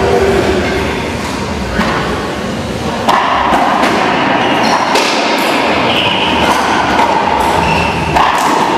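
Racquetball rally in a doubles game: the ball is struck by racquets and smacks off the court walls. There are sharp hits every second or two, echoing in the enclosed court.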